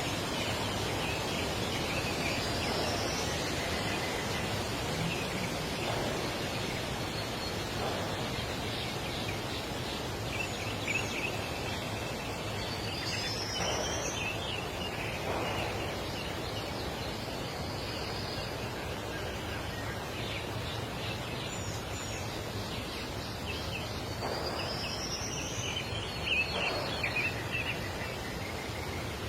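Birds calling over a steady background noise: a short rising whistle comes three times, about ten seconds apart, among scattered bursts of chattering calls.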